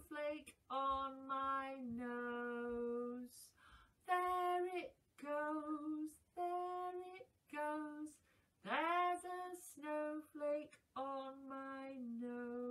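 A woman singing a children's song alone, without accompaniment, in sustained notes with short breaks between phrases and an upward swoop about nine seconds in.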